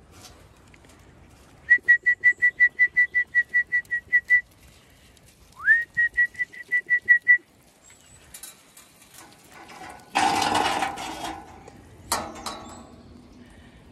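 A person whistling a fast run of short, identical high notes, about five a second for nearly three seconds, then a note sliding up into a second, shorter run. Near the end a galvanised metal farm gate rattles loudly and then clanks once.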